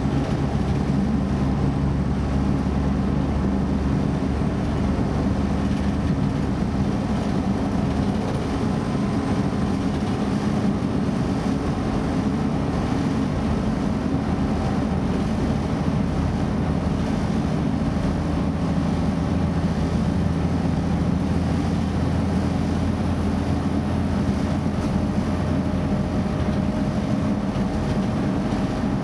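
Pesa Link DB class 633 diesel multiple unit running steadily, heard from on board: a constant low drone of the diesel engine and the running gear. A faint whine rises slightly in pitch over the last ten seconds or so.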